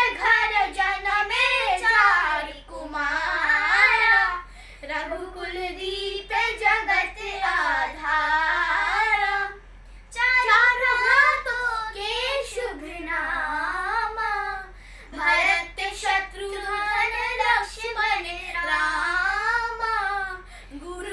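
A child's voice singing a Ramayan katha unaccompanied, in long wavering phrases broken by short pauses.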